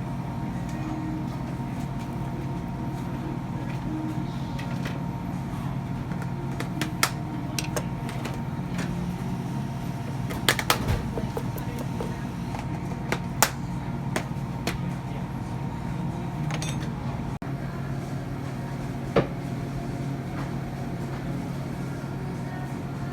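A steady low mechanical hum with a few sharp knocks and clicks scattered through it, several close together about halfway through.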